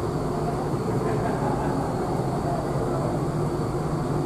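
Steady low drone of a large car ferry under way, heard on its open deck, with an even rushing noise over it.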